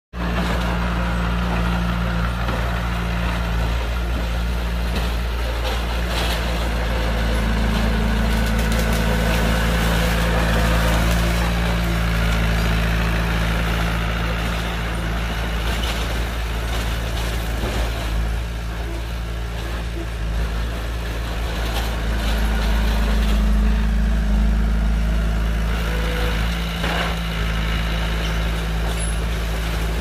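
Heavy earthmoving machinery's diesel engine running steadily, its pitch and level rising a little now and then, with a few knocks and clanks.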